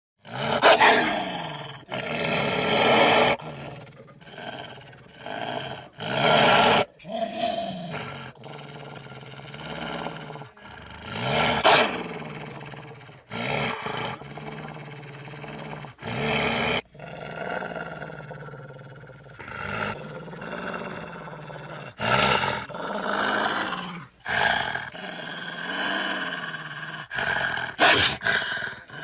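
Wolves growling and snarling in a series of loud bursts, each about a second long, with lower, steadier growling in between.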